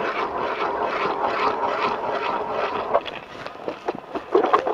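Hand ice auger drilling the first hole through lake ice: the blades cutting with a steady grinding rasp that pulses about three times a second with the turns. It stops about three seconds in, and a few knocks follow near the end.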